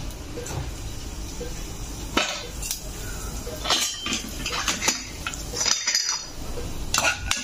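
Metal kitchen utensils clinking and knocking, a few sharp clinks starting about two seconds in, one with a brief metallic ring near the six-second mark.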